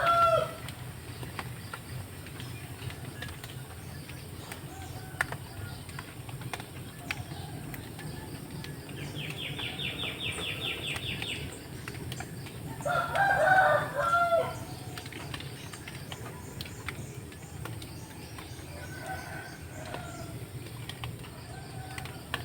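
A rooster crows about thirteen seconds in, and the end of an earlier crow is heard at the very start. A short rapid high trill comes a few seconds before the crow, and faint bird chirps follow later, over a steady low background hum.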